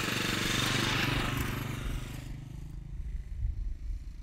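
Motorcycle passing close on a gravel road and moving away, its engine running steadily; the noise fades after about two seconds.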